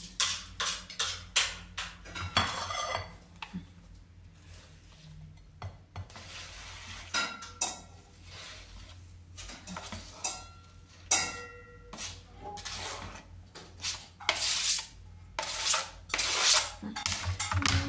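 Kitchen knife scraping and tapping on a plastic cutting board as diced tomato and onion are pushed off onto a plate, with the clatter of dishes. The knocks come throughout, with a few short ringing clinks and longer scrapes near the end.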